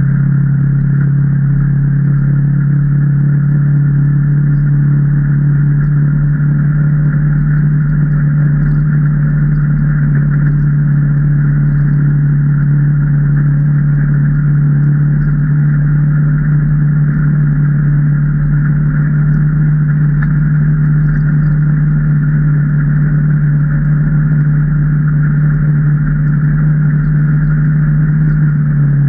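2019 Can-Am Maverick Trail 800 side-by-side's Rotax 800 V-twin engine running at steady revs while driving along a trail, holding one constant pitch throughout.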